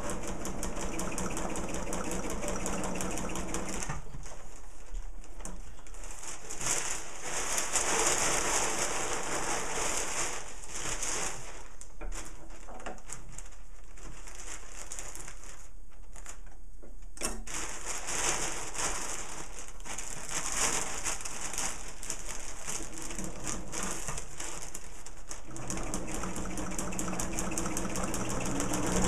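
Sewing machine running steadily, stitching the long final burrito-roll seam of a parafoil kite.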